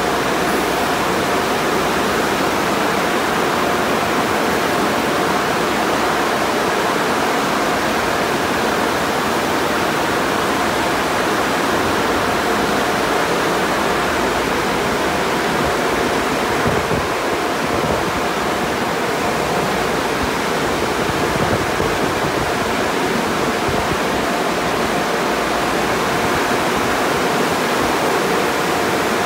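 Steady rushing noise inside an automatic conveyor car wash tunnel: water spraying hard over the car from the arches, with a faint steady hum of the wash machinery underneath.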